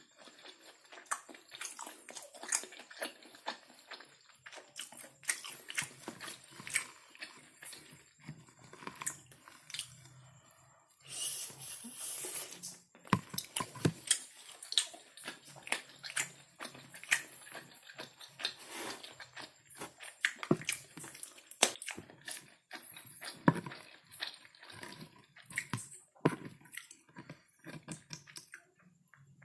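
Close-up eating sounds of kerupuk basah (temet), a soft, chewy fish cracker: wet chewing, biting and mouth smacks in an irregular run of clicks, with a short hiss about eleven seconds in.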